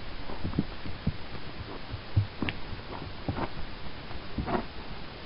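A horse walking on a dirt woodland trail: soft, uneven hoof thuds, several in the space of a few seconds.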